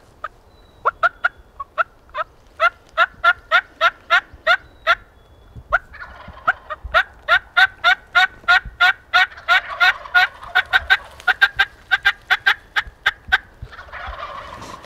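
Turkey yelping: two long runs of quick, evenly spaced yelps, about four a second, with a short break around six seconds in.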